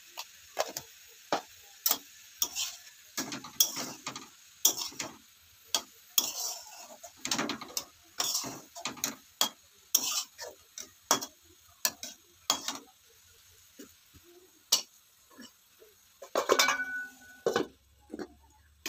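Metal spatula scraping and knocking against a pan, irregular strokes, while stirring a frying vegetable-and-tomato bhaja. A longer, louder clatter of the pan near the end.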